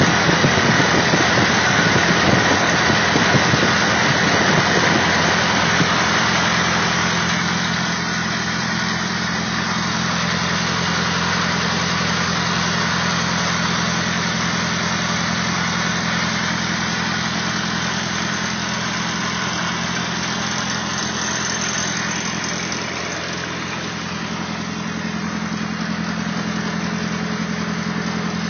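Willys CJ2A Jeep's Go Devil four-cylinder flathead engine running steadily at idle, freshly tuned up. It is a little louder for the first six seconds or so, then settles to an even idle.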